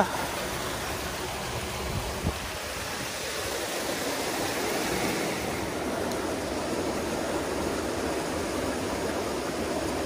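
Mountain stream running over rocks in shallow riffles, a steady rush of water, with two light knocks about two seconds in.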